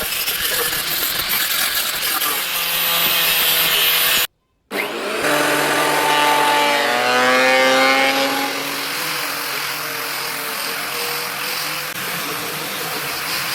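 Wood being sawn and worked with tools, in two clips joined by a brief silent cut about four seconds in. In the second clip the tool's pitch slides up and down for a few seconds.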